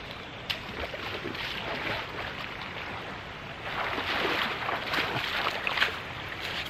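Rushing river water, a steady hiss that swells about four seconds in, with a few light clicks.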